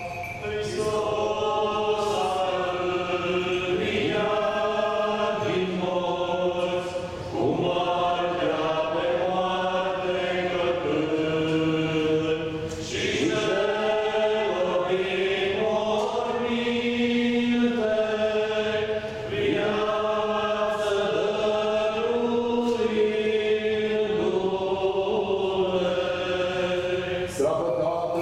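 Orthodox liturgical chant of the Paschal Resurrection service: several voices sing a slow, unaccompanied hymn, with a low note held steadily beneath the melody.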